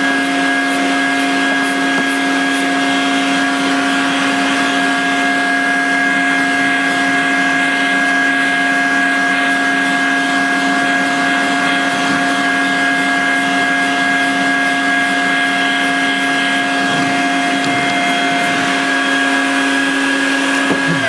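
Vacuum cleaner motor running steadily with an even whine as dirt is vacuumed off an air conditioner's coils; it is switched off at the very end and its pitch begins to fall.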